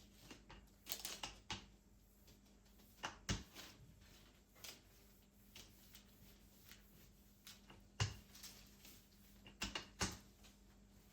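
Scattered light clicks and knocks of small objects being handled and set down, a few at a time with pauses between, over a faint steady hum.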